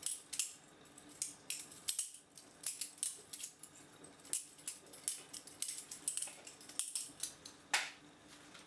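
Balisong (butterfly knife) being flipped in the hand: a fast, uneven run of sharp metallic clicks as the handles swing open and closed around the blade.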